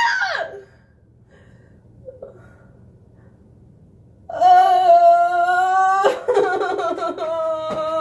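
A woman's high-pitched cry fades out in the first half second. After a quiet stretch comes a long, steady, high squeal of almost two seconds, then broken laughing, as a drying peel-off blackhead mask is pulled off skin and hurts.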